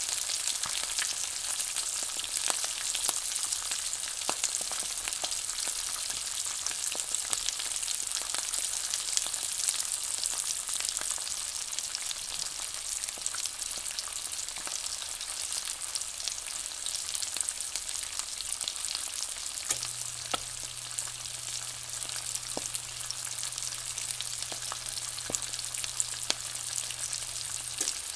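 Three eggs frying in oil in a nonstick pan: a steady sizzle with frequent small pops and crackles.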